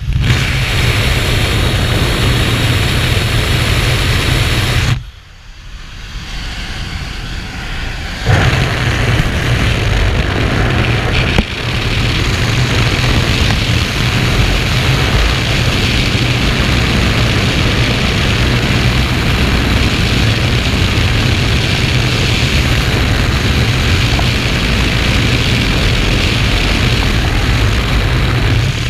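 Loud, steady wind rush and propeller-engine noise at the open door of a skydiving jump plane in flight. It falls away for a few seconds about five seconds in, then returns.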